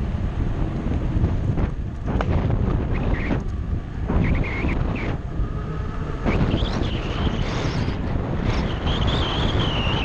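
Wind buffeting the microphone of a mountain bike's action camera at speed, mixed with tyre and frame rattle. A few short, wavering high squeals come through it, the longest near the end.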